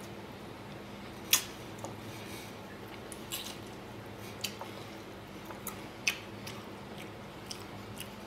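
Wet mouth sounds of eating pig's trotters: sucking and chewing the soft, chewy meat and skin off the bone, with sharp smacks scattered through, the loudest about a second in. A low steady hum runs underneath.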